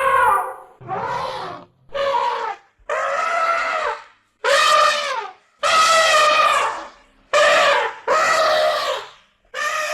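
Elephant trumpeting: a run of about eight loud blasts, each about a second long, with short gaps between them.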